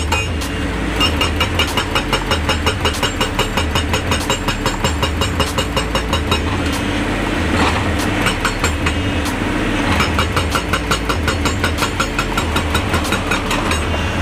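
Excavator-mounted hydraulic rock breaker hammering on rock in rapid, regular blows, in several runs with brief pauses between, over the steady hum of the excavator's diesel engine.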